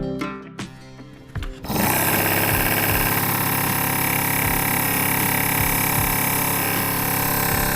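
Small DC motor of a homemade mini vacuum cleaner starting up about two seconds in and then running steadily with a constant whine.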